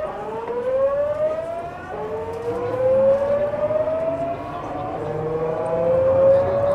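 Tokyu 9000 series electric train accelerating, heard from inside the car: the GTO-thyristor VVVF inverter and traction motors give a whine that rises in pitch in three stretches, each starting again at a lower pitch, over a low running rumble.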